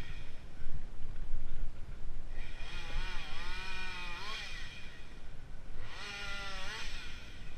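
Logging machinery running with a steady low rumble. Twice a whining tone rises and bends in pitch: first for about two seconds, a few seconds in, then briefly near the end.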